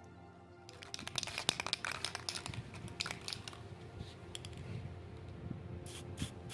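Rapid, irregular clicking and scratching of small hard parts being handled, with a regular ticking about three times a second near the end.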